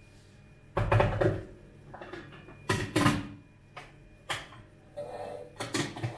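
Household handling sounds: several knocks and clatters of objects being picked up and set down, the loudest about a second in and around three seconds in.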